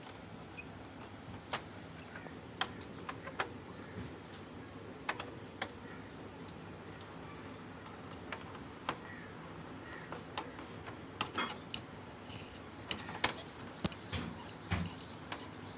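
Scattered, irregular light clicks and taps of small hard parts being handled, over a faint steady low hum.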